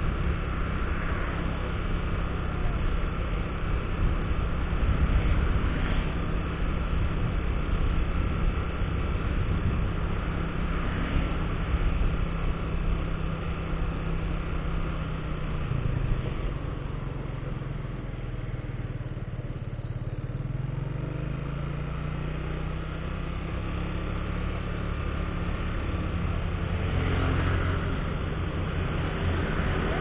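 Motorcycle engine running at road speed with steady road and wind noise. The engine note drops as the bike slows about halfway through, then rises again as it picks up speed.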